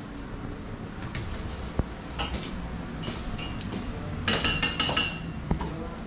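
Kitchen clatter: metal utensils and dishes clinking and knocking, a few scattered clinks and then a quick run of ringing clinks about four seconds in, over a low steady hum.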